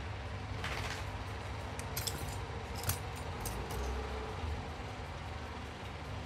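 Small brass clock parts clinking and ticking against each other and against metal hand tools as they are handled: a brief scrape, then a handful of light metallic clicks, over a steady low hum.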